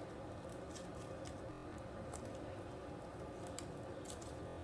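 Fluffy foam slime squished and pressed with one hand against a wooden floor, making a few faint, scattered sticky clicks.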